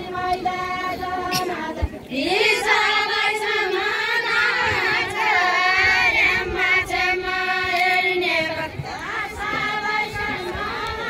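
A group of women singing a Deuda folk song without instruments, several voices together on long held, wavering notes. A new, louder phrase swells up about two seconds in, and another begins near the end.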